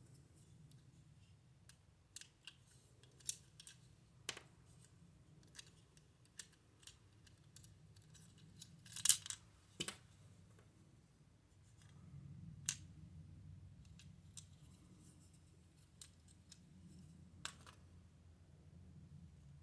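Scattered small clicks and taps of hands working a plastic toy mechanism while fitting LR41 button-cell batteries into it, with a louder clatter about nine seconds in.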